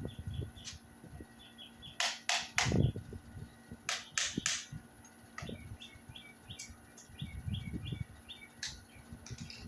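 Sharp knocks, three in quick succession and then three more about two seconds later, with small birds chirping over and over.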